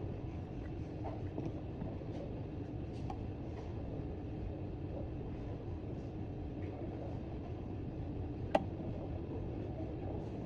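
Steady low rumbling background noise of a repair bench, with scattered faint light clicks and one sharp tick about eight and a half seconds in.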